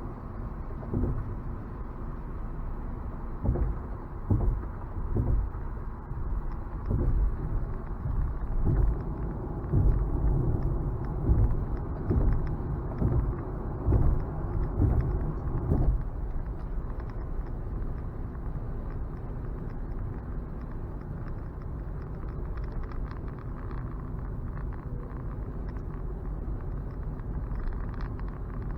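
Road and tyre noise inside the cabin of a Nissan Leaf electric car: a steady low rumble, with a run of heavy thuds over the first sixteen seconds or so as the car crosses rough, broken pavement, then a smoother rumble.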